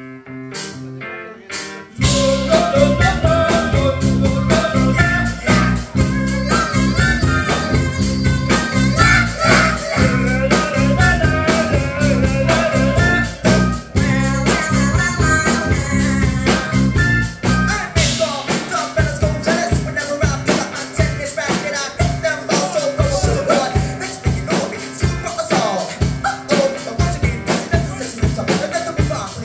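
Live band playing a rock song: a sparse guitar intro, then the full band with drums and guitars comes in loudly about two seconds in.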